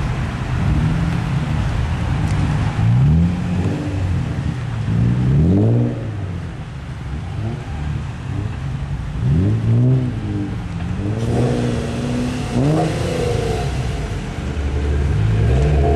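Nissan 350Z and Infiniti G35 sports cars driving past one after another, their 3.5-litre V6 engines revving up as each pulls away. Several revs rise and fall in pitch over a steady engine rumble.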